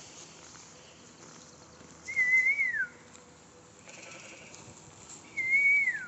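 A person whistling two short calls about three seconds apart. Each is a clear held note that wavers slightly and then slides down at the end.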